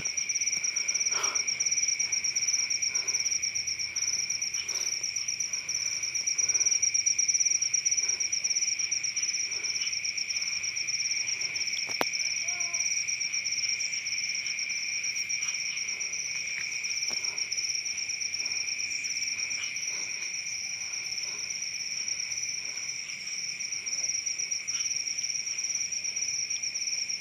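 Night chorus of crickets and other insects, a steady high trill at two pitches. A single faint click comes about twelve seconds in.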